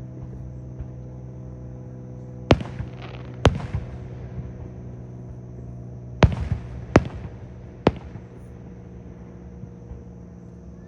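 Fireworks shells bursting overhead: five sharp booms, two close together, a pause of nearly three seconds, then three more in quick succession, each with a brief echo. A steady low hum sits underneath.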